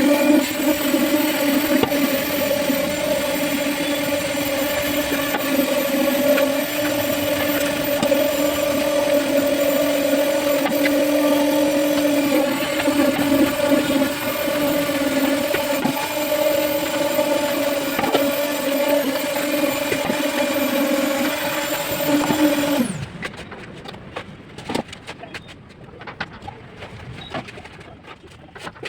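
An electric power tool's motor running at a steady high-pitched whine, then switched off about 23 seconds in, its pitch dropping as it winds down; faint clicks and knocks follow.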